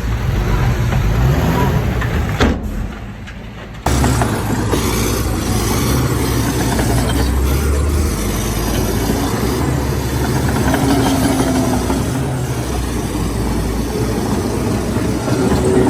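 Heavy diesel engines of earthmoving machinery running steadily under work. The sound falls away briefly about two and a half seconds in and cuts back in abruptly just before four seconds.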